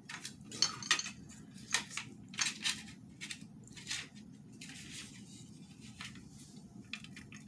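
Small pieces of a decorative kit being handled and fitted together: light clicks and clinks, several in the first few seconds, then fewer and fainter.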